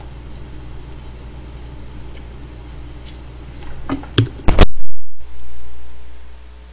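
Steady low hum and hiss of background noise, with a short burst of loud, sharp clicks and knocks about four seconds in, after which the sound cuts out for a moment.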